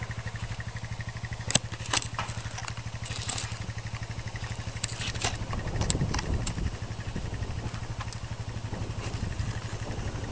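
Small ATV engine idling steadily with an even low pulse. A scatter of sharp clicks sounds over the first several seconds.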